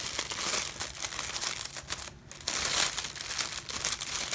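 Crinkly packaging rustled and crumpled by hand as a small pouch is taken out and handled, with a brief pause about two seconds in.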